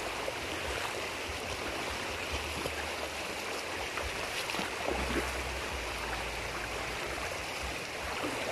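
Creek water rushing steadily, with a low rumble that comes and goes underneath.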